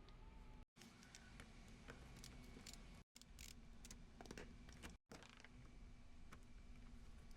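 Near silence: faint room tone with a few scattered light clicks, cut by three brief dead gaps.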